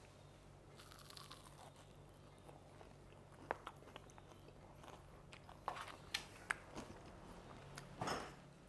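Crunching and chewing as a crisp, deep-fried chickpea-flour (besan) spinach pakora is bitten and eaten. There are a few sharp crackles through the middle and a louder burst near the end.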